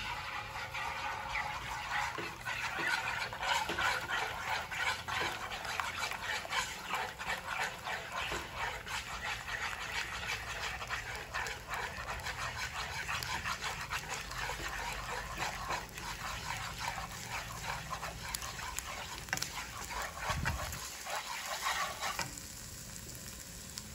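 Beaten eggs sizzling and crackling in hot garlic oil in a nonstick wok while being stirred with wooden chopsticks; the sizzle dies down near the end as the eggs set.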